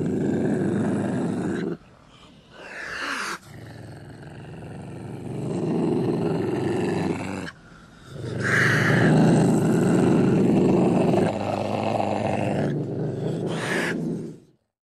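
Ocelot growling in three long, rough, low growls with short breaks between them, the last the longest.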